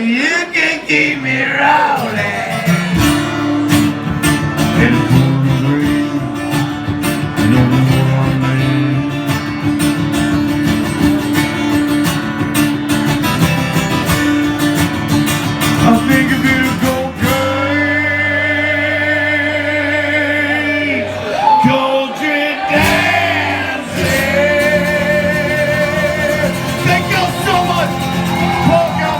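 Live country band playing loud music, with guitar prominent and some singing, in a large hall; sustained wavering notes come in about two thirds of the way through.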